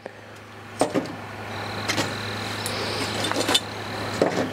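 Metal tongs clinking and scraping against charcoal briquettes and a metal tray as hot coals are picked up and set down: a few light clinks about a second in and again around two, three and four seconds, over a steady low hum.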